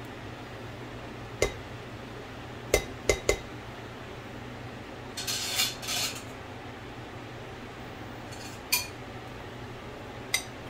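A spatula knocks against the rim of a ceramic bowl, once and then three times in quick succession, and scrapes for about a second. Two utensil clinks on the bowl follow. A kitchen fan hums steadily underneath.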